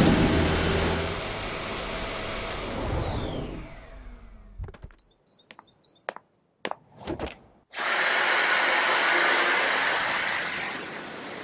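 Dyson vacuum cleaner running with a high motor whine that falls in pitch as the motor spins down and stops. A few sharp clicks follow, then the vacuum switches on again abruptly about eight seconds in and runs with a steady high whine.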